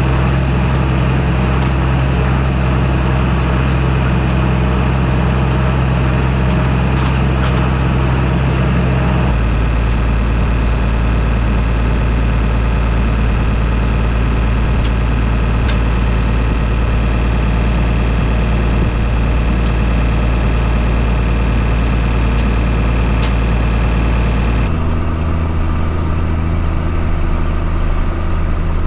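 John Deere farm tractor's diesel engine running steadily while pulling a hay rake. The engine note changes suddenly twice, about nine seconds in and again near the end.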